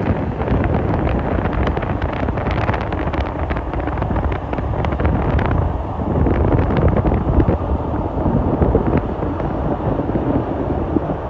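Wind buffeting the microphone over the steady rushing noise of a passenger ferry under way, with scattered crackles through the first half.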